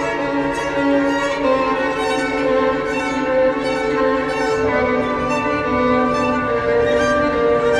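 Background music on bowed strings: a violin melody in long held notes over lower strings, with a deeper part coming in a little after halfway.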